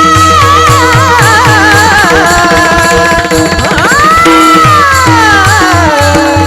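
Marathi devotional abhang singing: one voice holds a long, ornamented vowel over a steady drone and a regular hand-drum beat. About three and a half seconds in, the voice slides sharply up, then falls slowly.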